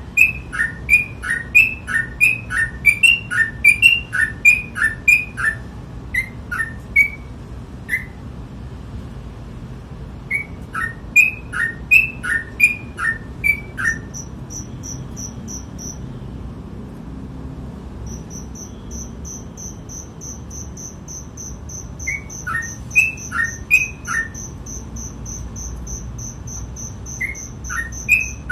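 Yellow-vented bulbul (trucukan) singing in rapid-fire 'ropel' phrases: bursts of quick two-note chirps, alternating higher and lower, about three a second, broken by pauses. From about the middle, a steady high-pitched pulsing trill runs underneath.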